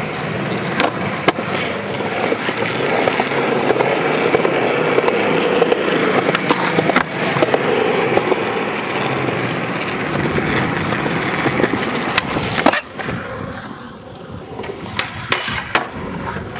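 Skateboard wheels rolling steadily on concrete, with a few clicks of the board along the way. About thirteen seconds in a sharp clack of the board rings out and the rolling stops, followed by a few lighter knocks near the end.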